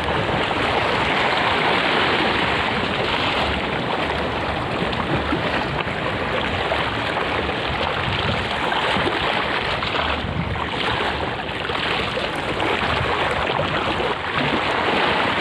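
Steady wash of sea waves with wind, an even rushing noise without pauses.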